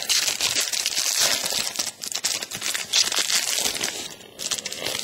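Trading-card pack wrapper crinkling and tearing as it is opened, an irregular run of crackles that comes and goes.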